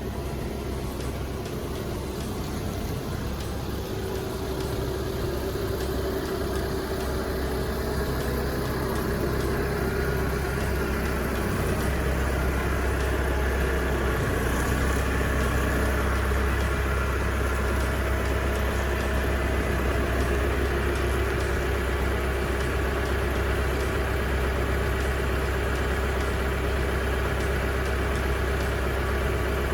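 Truck engine running steadily, a low even hum that grows louder over the first ten seconds and then holds.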